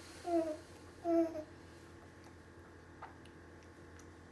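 Baby making two short, high-pitched babbling sounds within the first second and a half, followed by a faint click about three seconds in.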